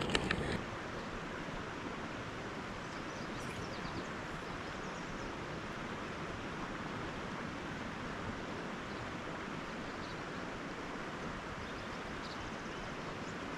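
Steady rush of river water flowing past the gravel bank, with a short louder noise right at the start.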